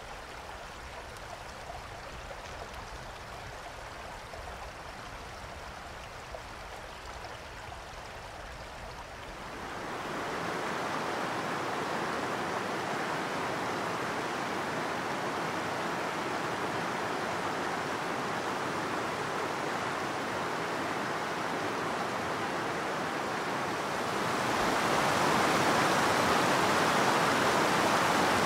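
Rushing water of a rocky mountain stream: a steady rush that grows louder about ten seconds in and louder again near the end.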